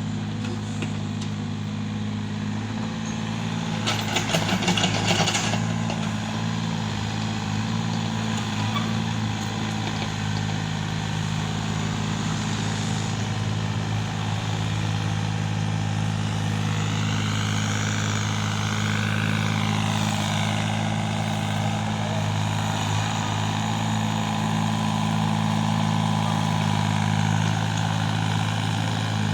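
Heavy diesel engine running steadily, with a burst of clattering about four to five and a half seconds in. In the second half a higher whine wavers up and down for a few seconds.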